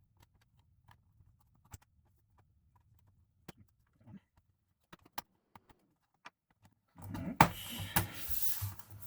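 Faint, scattered clicks and taps from handling a MacBook Pro laptop, then about seven seconds in a loud rubbing, scraping sound with a sharp knock as parts are slid and set against each other.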